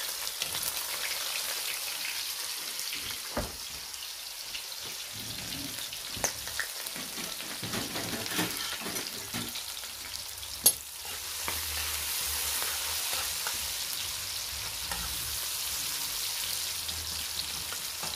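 Sliced red onion, garlic and ginger sizzling in hot oil in a large metal kadai, a steady frying hiss. A couple of sharp metal clinks of utensils against the pan, the loudest a little past halfway, and the sizzle grows a little louder in the second half as the onions are stirred with a steel spoon.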